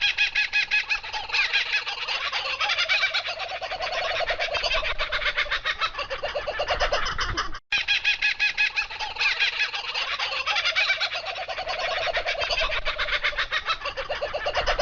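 A flock of domestic fowl calling continuously in a dense chatter of rapid calls. The sound cuts out briefly a little past halfway, then a near-identical stretch plays again.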